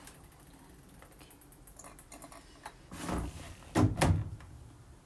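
A door being handled: light clicks and rattles, then a knock and two heavy thuds about four seconds in.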